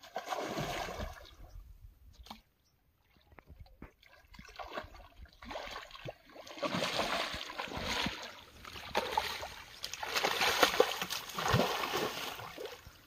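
A hooked rohu carp thrashing and splashing at the surface of shallow river water, then splashing and sloshing as it is grabbed by hand. The splashes are irregular: a burst at the start, a short lull, then denser splashing that is loudest in the last few seconds.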